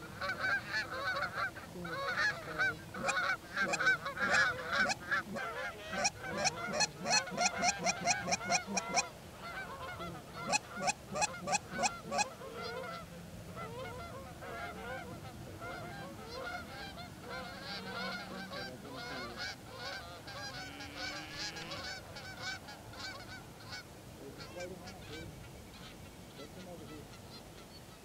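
A flock of Canada geese honking as it lands in a field, with many birds calling at once. Loud rapid runs of honks come in the first half, then the calling settles into softer, scattered honks and chatter.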